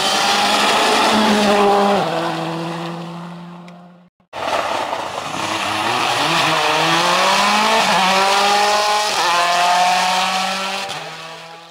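Rally car engines at full speed. A Skoda Fabia R5's 1.6-litre turbocharged four-cylinder passes close, its note dropping about two seconds in and fading as it goes away. After an abrupt cut, a Mini rally car accelerates hard, its engine pitch climbing and stepping up through the gear changes before fading.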